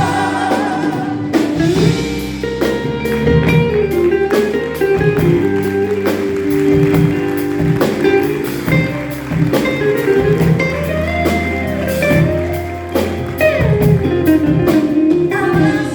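Live band playing an instrumental interlude of a pop ballad: a sliding lead melody over bass, guitar and drums, with no singing.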